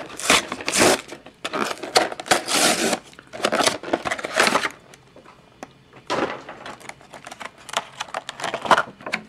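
Cardboard collectible box being opened and its clear plastic blister tray handled: irregular rustling, crinkling and sharp clicks, with a quieter stretch about halfway through.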